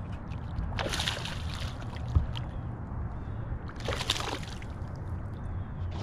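Water splashing twice, each splash about a second long and roughly three seconds apart, as a hooked bass thrashes at the surface while being brought to the boat. A low steady rumble runs underneath.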